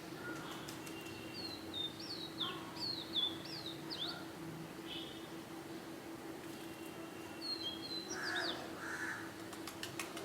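Small birds chirping in runs of quick, high down-slurred notes, once starting about a second in and again near eight seconds, with a crow cawing around eight to nine seconds. A steady low hum runs underneath, and a few sharp clicks come just before the end.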